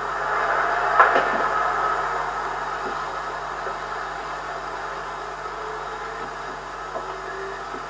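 Steady machine-like noise that slowly fades, with one sharp knock about a second in and a few light knocks near the end.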